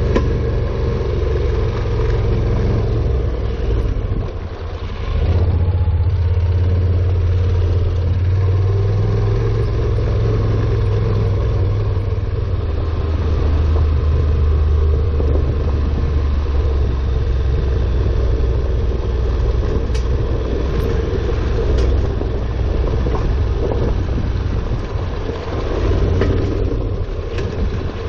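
Honda NC700X motorcycle's parallel-twin engine running steadily under way, with a short dip in level about four seconds in before it picks up again.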